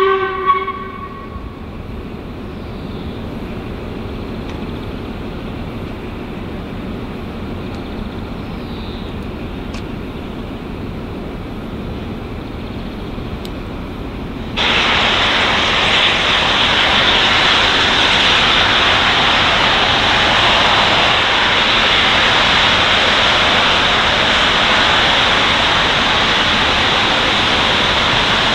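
Steam locomotive standing in steam: a steady rush, then about halfway through a sudden, much louder steady hiss of escaping steam that holds on, as steam blows off from the boiler.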